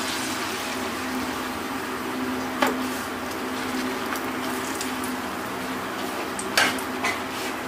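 A pappadam deep-frying in hot coconut oil in an aluminium kadai, with a steady sizzle. A metal fork clicks sharply against the pan about two and a half seconds in and twice near the end.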